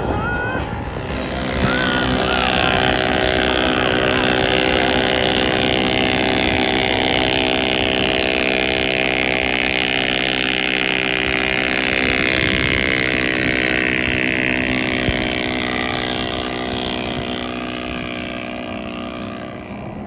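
British Seagull two-stroke outboard motor running at a steady speed, easing off slightly near the end.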